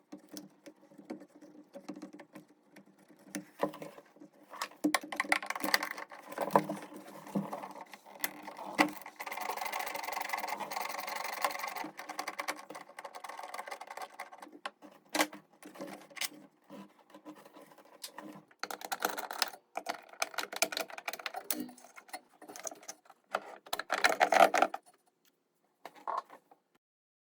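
Metal clicks, clanks and knocks of hand tools and parts while the suspension friction dampers are being unbolted and removed from a Panasonic NA-VX9300L drum washing machine. There is a few seconds of rapid, continuous rattling in the middle and a louder flurry of knocks near the end.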